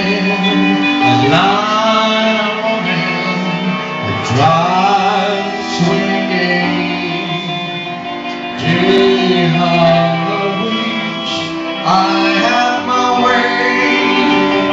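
A live fifties-style rock and roll band playing, with electric guitar, upright bass, drums and keyboard under a singer's long gliding notes, recorded on a mobile phone.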